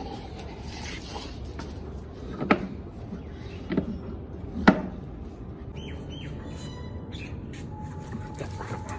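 Three dull knocks of a rubber tyre hitting a tiled floor, about a second apart, the last the loudest, as a German Shepherd drops and tosses it in play.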